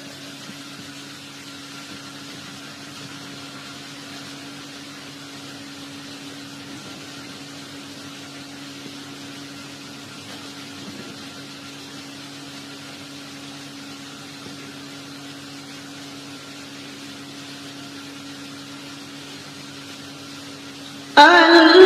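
A steady low hum with a faint hiss, holding a few faint unchanging tones. Loud singing cuts in suddenly right at the end.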